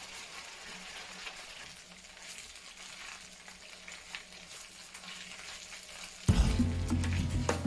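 Beef strips sizzling in hot oil in a non-stick grill pan, with soft scrapes and ticks as a plastic spatula stirs them; the meat is cooked through. About six seconds in, louder background music comes in.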